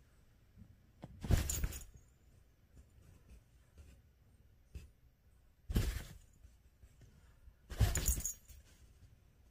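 Fabric cat tunnel rustling in three short bursts, the loudest about a second and a half in, then two more near the end.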